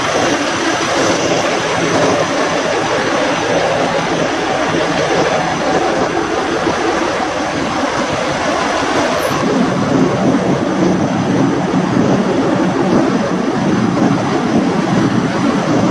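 Semi-truck diesel engine idling at close range: a steady, loud rumble and hiss that holds evenly throughout.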